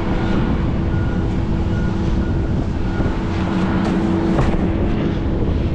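A boat engine running steadily: a continuous low drone with a constant hum.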